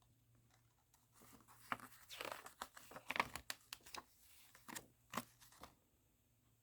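Paper sheets being handled: rustling and crinkling, a run of crisp crackles and swishes that starts about a second in and stops shortly before the end.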